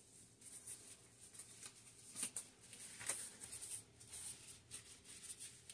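Faint rustling and crackling of a thin disposable plastic glove being pulled onto a hand, with a few sharper crinkles about two and three seconds in.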